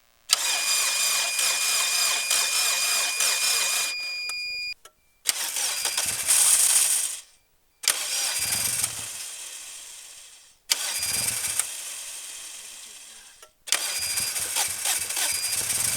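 1990 Pontiac Firefly's Suzuki three-cylinder engine being cranked by its starter in about five attempts of a few seconds each after sitting for a couple of years, firing on the later attempts and catching near the end.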